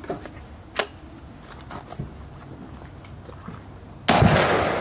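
A 37 mm launcher firing a fin-stabilized chalk round from an aluminium hull: one loud report about four seconds in, dying away over about a second. A sharp click comes under a second in.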